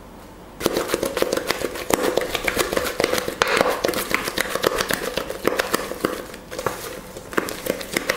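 Spatula scraping and folding thick macaron batter against a stainless steel bowl, a dense run of quick irregular scrapes and wet clicks starting about half a second in. This is macaronage: the almond mixture is being folded into Italian meringue to loosen the batter.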